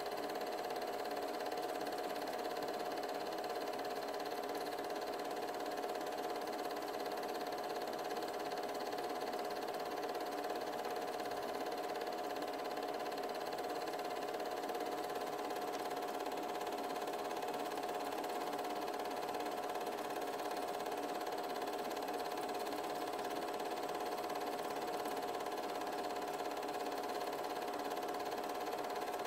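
Steady mechanical hum of an 8mm film projector running, with a constant whine that never changes.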